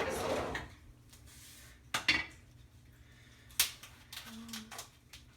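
Kitchen pots and utensils being handled: a brief clatter, then two sharp clinks of metal or dishes knocking, one about two seconds in and one a second and a half later.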